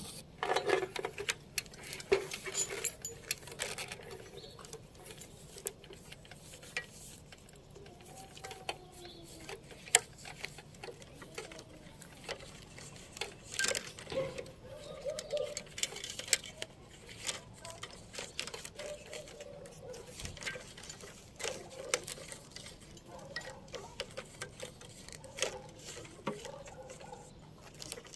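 Irregular small clicks, taps and rubbing from gloved hands handling a coaxial drop cable and its fittings while tying it off.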